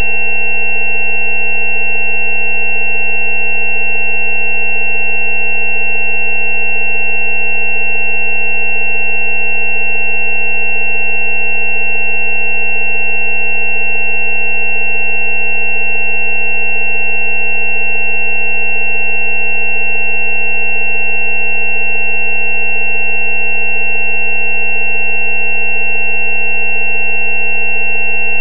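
Steady electronic tone drone, presented as the 190 Hz 'healing frequency' for dental abscesses: a low hum near 190 Hz layered with several higher constant tones, the loudest a thin high whistle-like tone. It does not change at all.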